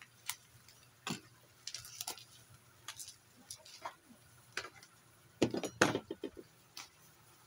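Bubble-wrap packing and an aluminium-framed solar panel being handled: scattered crinkles, taps and clicks, with a louder cluster of rustling knocks about five and a half seconds in.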